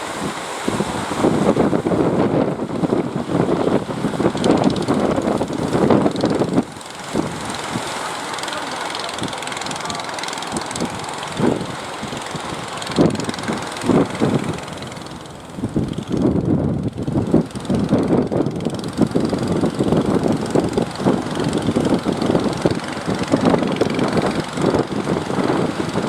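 Fishing boat engine running steadily as a boat heads out to sea, a rough drone with its level rising and falling.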